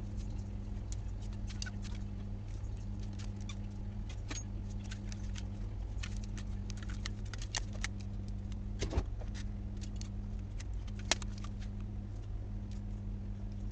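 Scattered small clicks and taps, like tools and phone parts being handled on a workbench, over a steady low electrical hum; two sharper clicks stand out, one about nine seconds in and one about eleven seconds in.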